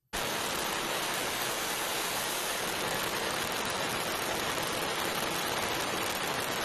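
Oxy-fuel brazing torch with a neutral flame, a steady hiss as it heats the upper copper fitting of a new compressor to braze the joint.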